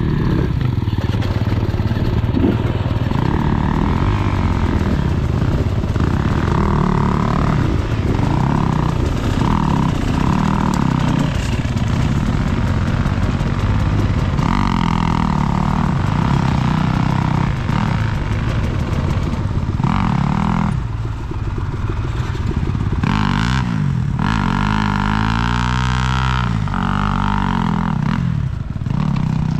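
Dirt bike engine under way on a single-track trail, its revs rising and falling constantly as the throttle is worked, loud and close.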